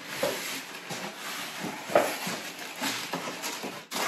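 Cardboard box flaps and paper wrapping rustling and scraping as a box is opened and unpacked, in many irregular short rustles.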